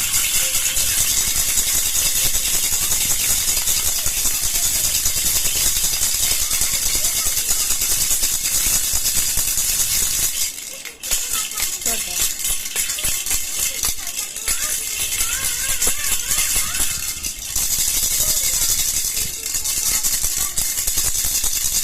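Baby jhunjhuna rattle being shaken continuously in a dense, fast rattle, with a brief pause about halfway through.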